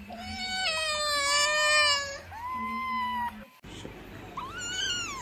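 Kittens meowing: one long drawn-out meow, then a shorter one; after a break, a higher mew that rises and falls near the end.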